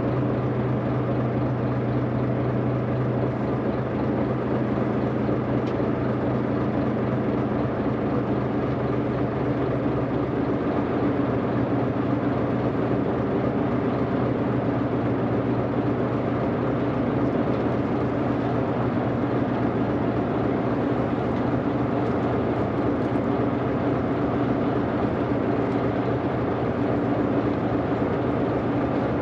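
Inboard engine of a chartered fishing boat running steadily, a constant low hum heard aboard over the rush of water and wind.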